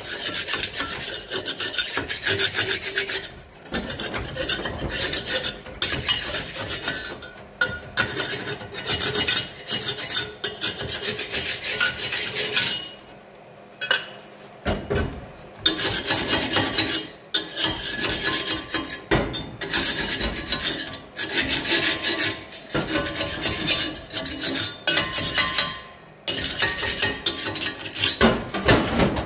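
Rough scraping and rasping strokes on steel, coming in bursts of one to two seconds with short pauses, and one longer pause about halfway through.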